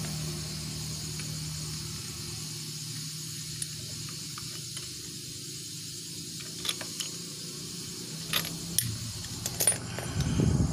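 Light metallic clinks of a spark plug tool against the cylinder head of a small motorcycle engine as the new spark plug is fitted, a handful of sharp ticks from about six seconds in, then a short low rumble near the end.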